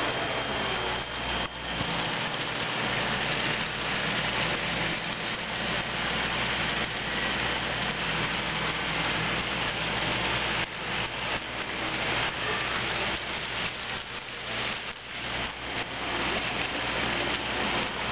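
Model freight train running on the layout track close by: a steady rolling rattle of wheels on rail with a motor whir.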